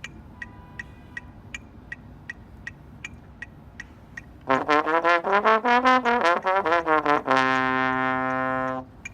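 Evenly spaced clicks, about three a second, then about halfway through a low brass instrument, likely a trombone, plays a run of slurred notes up and down and ends on one long held low note.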